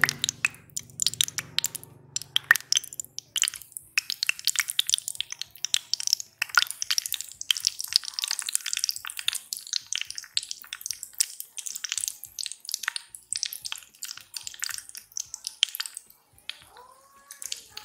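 Crumb-coated chicken drumsticks deep-frying in hot oil in a small wok: dense, continuous crackling and sizzling as the oil bubbles around them.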